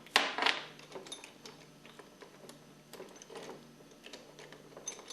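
Metal pump parts knocking and clicking as the piston assemblies are worked out of a Hypro pump housing: two sharp knocks near the start, then scattered small clicks.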